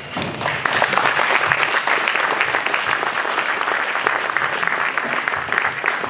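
Audience applauding: many hands clapping in a dense, even patter.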